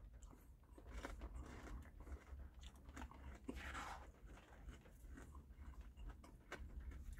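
Faint chewing of a mouthful of ice cream with caramel popcorn pieces, with scattered small mouth clicks and a spoon working in the paper McFlurry cup.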